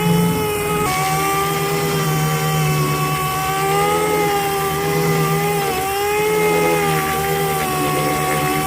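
Power sander running steadily against a car's painted fender, sanding it down. Its motor whine drops slightly in pitch about a second in and then wavers a little.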